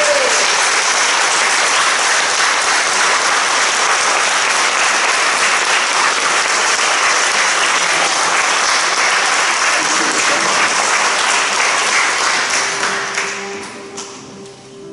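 Audience applauding, dying away about thirteen seconds in. Near the end, single notes plucked on a flamenco guitar as it is tuned.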